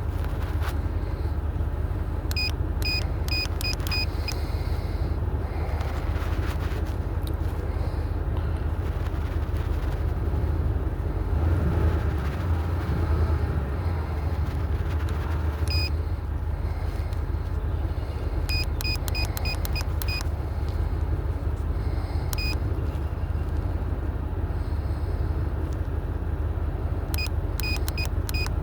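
Ford F-150 pickup engine idling steadily with a low rumble, while a handheld OBD-II scan tool gives short high beeps, singly and in quick runs of four to six, as its buttons are pressed.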